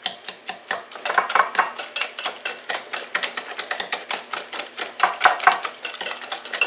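Wire whisk clicking rapidly and evenly against a glass mixing bowl as it beats and mashes cooked squash.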